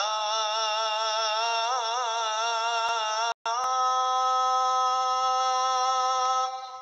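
A muezzin's voice chanting the azan, the Islamic call to prayer, drawing out the phrase "Hayya 'ala s-salah" in one long ornamented melisma. The sound cuts out for a moment about three and a half seconds in, then the voice holds a steady note that fades near the end.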